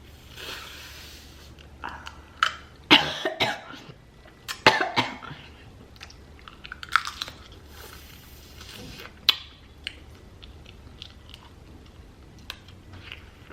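Close-up eating sounds from a seafood mukbang: chewing, with several sudden loud crunching bursts in the middle and small clicks in between.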